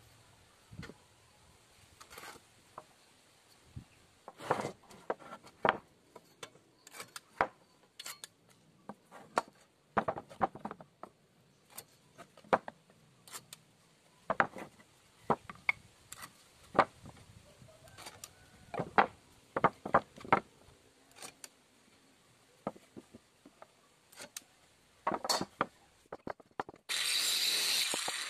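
Scattered knocks and clatter of wooden boards and blocks being handled, shifted and set down on a wooden workbench. About a second before the end, a power tool starts running with a loud steady noise.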